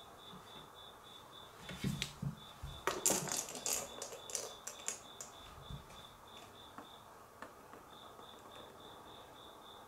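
Light clicks and scuffs from a cat moving about under a wooden stool on a wooden floor, clustered about two and three seconds in. Under them runs a faint high-pitched pulsing chirp, about three pulses a second.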